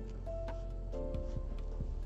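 Background music: held chords that change every second or so, with light ticking percussion.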